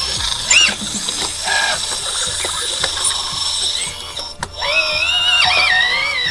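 Hydraulic pump of an RC Kabolite K963 track loader whining in short spells, its pitch rising and falling as the loader works, over steady mechanical clicking and ticking.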